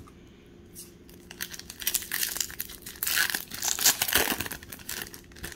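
Crinkly foil-plastic wrapper of a Pokémon booster pack being handled and torn open. The crackling starts about a second and a half in and is loudest in the second half.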